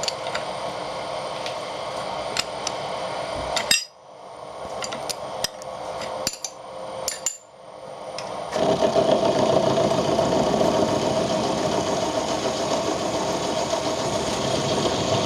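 Workshop power tool running, with light metallic clicks: it stops about four seconds in, runs up briefly twice, then runs steadily and louder from about halfway through, working the metal to form a slot in a thread-insert tool.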